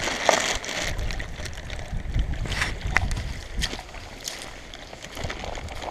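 Wind buffeting the microphone on an open shore. A low rumble over a steady hiss eases after about three seconds, and a few short sharp clicks are scattered through.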